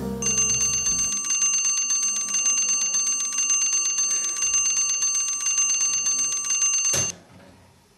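Bell alarm clock ringing with a fast, steady rattle of strikes, then stopped suddenly with a knock about seven seconds in.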